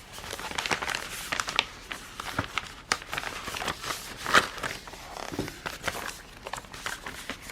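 Handling of a cross-stitch kit's packaging: irregular rustling and crinkling of plastic and paper with small scattered clicks and taps.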